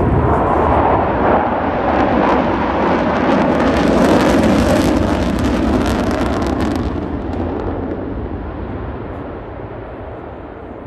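Loud jet roar from a Blue Angels F/A-18 Super Hornet passing overhead, crackling for the first several seconds, then fading away over the last few seconds as it recedes.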